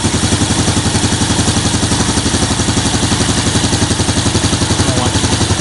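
Yamaha Jupiter Z1's small single-cylinder four-stroke engine idling steadily with its valve cover off, the valvetrain exposed and flinging oil, just after the valve clearances were reset.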